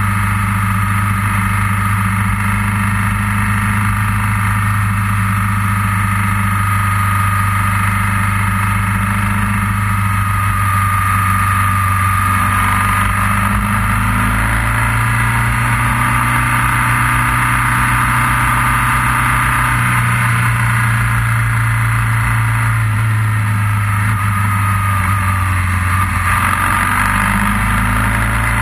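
Motorcycle engine running steadily under way, its pitch shifting a little as the speed changes.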